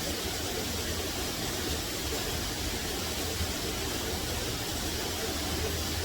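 Steady rushing of falling water from the partly frozen waterfall, a constant noise with low rumble underneath.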